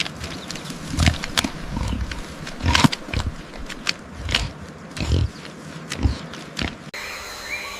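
Pig grunting: short low grunts about once a second, with sharp clicks between them. Near the end the sound cuts to a different background with faint high chirps.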